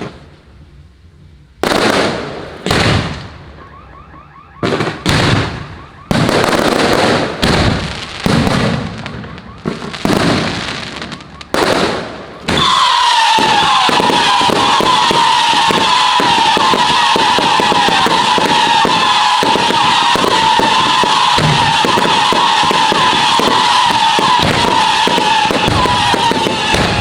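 Fireworks going off: separate loud blasts about once a second. Then, about twelve seconds in, a long continuous barrage of rapid crackling with a steady high whine over it.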